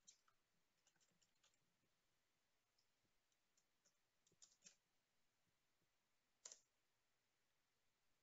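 Faint computer keyboard typing: a few scattered key clicks, then one louder key press late on, the Enter key running the command.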